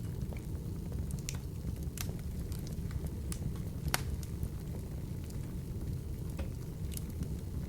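Wood fire burning in an open fireplace: a steady low rumble of flames with scattered sharp crackles and pops from the burning wood, the loudest pop about four seconds in.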